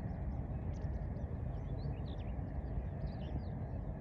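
Outdoor marsh ambience: a steady low rumble with many short, high bird chirps scattered throughout.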